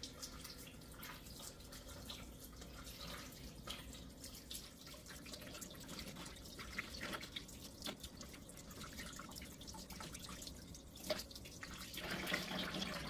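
Kitchen faucet running a thin stream into the sink while cured goose breasts are rinsed under it by hand, with small drips and splashes throughout. The water gets louder near the end.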